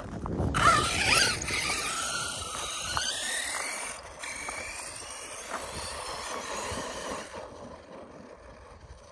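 Arrma Kraton 6S RC truck's brushless motor and drivetrain whining as it speeds away over loose dirt, the whine rising and falling with the throttle. It grows fainter with distance and dies away about seven seconds in.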